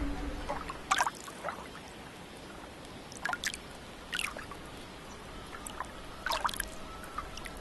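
Scattered water drips and plinks, about seven short ones each dropping quickly in pitch, over a faint steady hiss, as the tail of music fades out at the start.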